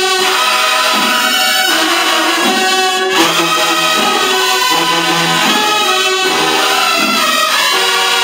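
High school marching band playing a song live, brass-led, with held chords and sousaphones on the low notes.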